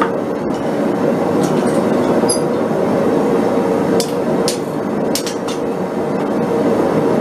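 Propane forge burner running with a steady roar, under several scattered hammer blows on hot steel against the anvil, some with a short metallic ring.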